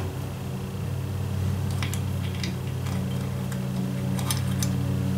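A steady low mechanical hum, with a few light metallic clicks and taps as brake shoes are fitted by hand onto a tractor's drum-brake backing plate.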